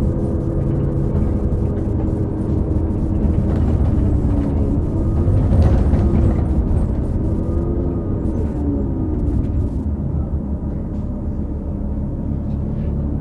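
Onboard a 2018 New Flyer XD40 transit bus with a Cummins L9 engine and Allison B3400xFE transmission: steady drivetrain rumble with a whine that rises and falls in pitch a little past the middle. The whine is the odd transmission-bearing sound found on several buses of this series.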